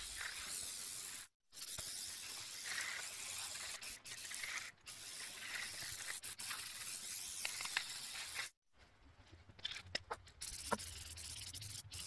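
Aerosol spray can hissing in long sprays of a few seconds each, separated by short breaks. During a longer break about two-thirds of the way through there are a few light clicks and knocks before the spraying starts again.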